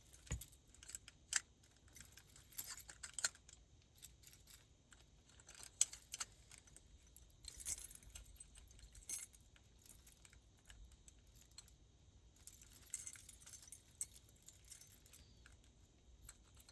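Key jiggling and rattling in a door-lock cylinder, with scattered metallic clicks and jangles as it is worked back and forth: the key is stuck and will not come out.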